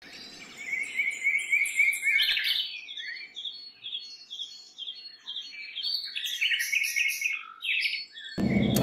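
Small birds chirping: a quick series of short high chirps, repeated over and over. Near the end a meat grinder machine starts up suddenly and loudly with a fast rhythmic clatter.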